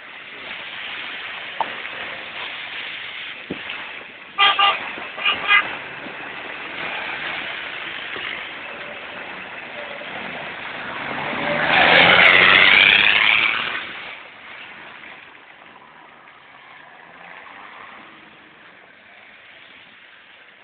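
Off-road 4x4s running around a muddy meeting ground: a vehicle horn gives three short toots about four seconds in. Later a 4x4 drives close past, its engine and tyres swelling loudly for about two seconds and then fading.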